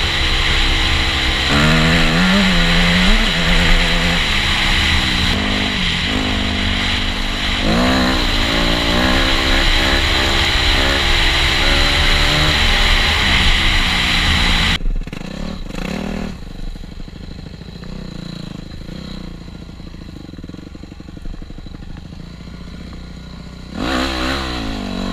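Yamaha YZ250F dirt bike engine revving hard under acceleration, its pitch climbing and falling several times as the gears change. About fifteen seconds in it falls back to a much quieter low running, then revs up again briefly near the end.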